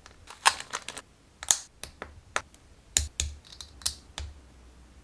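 Small plastic and resin parts of a 1/60 Perfect Grade Gundam Exia model kit being handled and pressed together: about a dozen irregular sharp clicks and snaps, a few with short scraping rubs.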